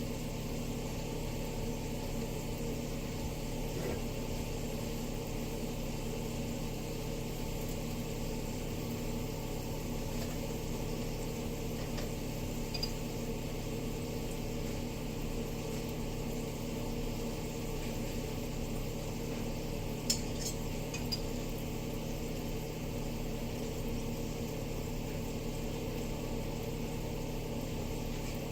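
Steady machine hum of a running appliance or fan, with a couple of small clinks of cookware about a third and two thirds of the way through.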